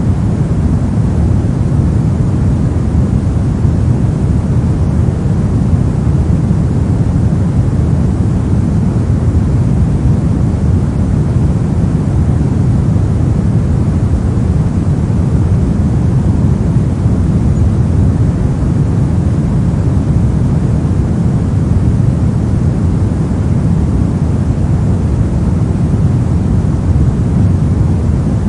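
Steady synthetic pink noise: an even, unchanging rush with most of its weight in the low end.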